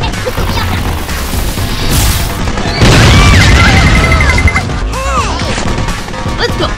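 Background music with a steady beat, overlaid with comedy sound effects. About three seconds in comes a loud noisy burst lasting a second and a half, with sliding and warbling tones on top.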